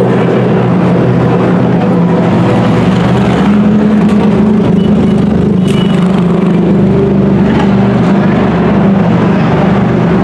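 Prototype race car engine running steadily at idle, an even pitched engine note with no revving.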